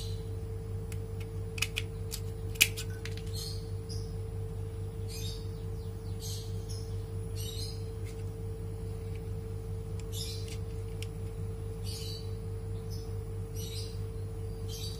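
A few sharp metallic clicks about two seconds in, the loudest at the end, as steel aviation snips are worked on wire mesh. Under them runs a steady electrical hum, and short high chirps recur about once a second.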